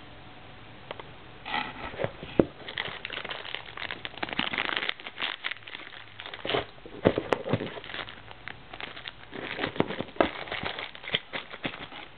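Packaging being handled in an unboxing: irregular crinkling and rustling with scattered clicks and knocks, starting about a second and a half in.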